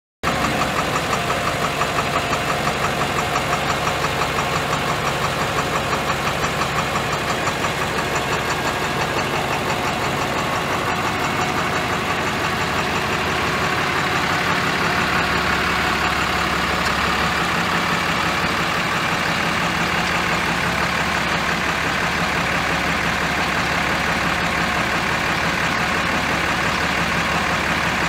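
International T444 7.3-litre diesel engine of a bucket truck running steadily at idle while it powers the aerial lift's boom.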